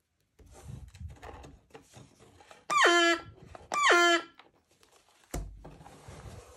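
Speaking Picture Book donkey voice, a pull-cord bellows-and-reed noisemaker: two reedy honks about a second apart, each dropping sharply in pitch and then holding low. Paper and card rustle around them, and a thump about five seconds in as the book is shut.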